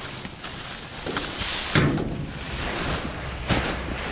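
Plastic trash bags rustling and crinkling in a few bursts as they are pushed about with a reach grabber, with wind rumbling on the microphone.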